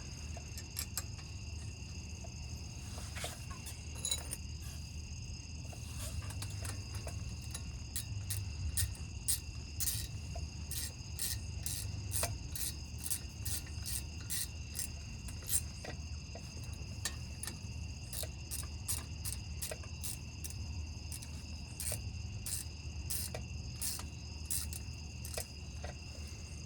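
Irregular sharp clicks and taps of hand tools as the brake caliper bolts are put back in and tightened, over a steady high-pitched trill of insects.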